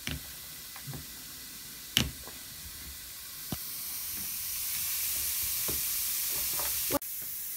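Steady fizzing hiss of a baking-soda fizz ball dissolving in a pot of water, coming in about halfway through and growing. Before it, a few light clicks and one sharp tap from toy dolls being handled.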